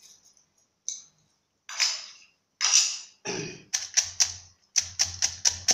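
Wooden pestle pounding chilies, garlic and herbs into a spice paste in a clay mortar: a few separate thuds at first, then steady, quicker pounding of about three strokes a second in the second half.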